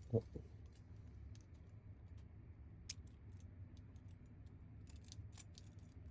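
Faint, scattered small metallic clicks and ticks as the parts of an ASSA Twin Max lock are handled during rekeying, with the key being worked into the plug. The clicks come irregularly and grow more frequent in the second half, after a short soft thump right at the start.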